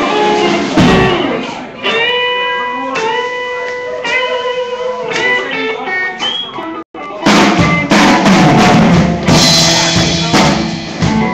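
A live band picked up by a phone microphone: electric guitar playing held, slightly bending notes, then about seven seconds in the drums and the full band come in loud.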